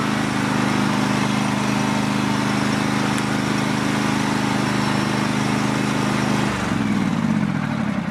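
Cub Cadet GT2544 garden tractor engine running at a steady speed, then slowing with a falling pitch about six and a half seconds in.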